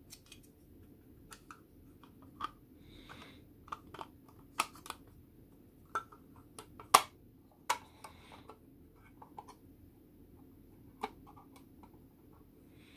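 Plastic scale-model kit parts clicking and tapping against each other as they are handled and test-fitted, in irregular sharp clicks with a few short scraping rustles; the sharpest click comes about seven seconds in.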